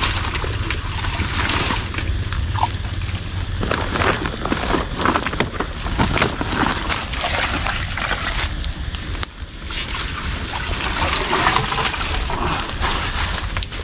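Water sloshing and splashing in a continuous run of irregular strokes, easing briefly a little past the middle.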